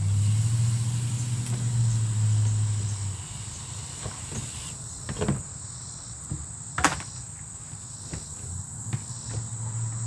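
Garden hose water running into the plastic wash tub of a portable twin-tub washing machine, with a low hum in the first few seconds; the flow stops about five seconds in, followed by two sharp clicks. A steady high insect trill runs throughout.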